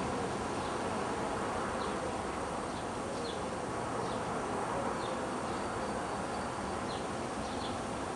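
A flying insect buzzing, a faint wavering drone, over steady background hiss, with a few short, faint falling bird chirps.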